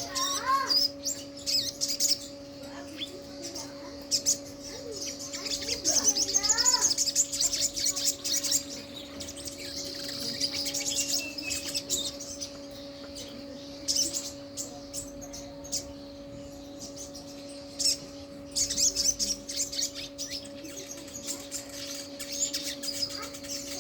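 Sogok ontong (sogon), the little spiderhunter, singing loudly: bursts of rapid, high, chattering chirps and trills. A steady low hum runs under the song.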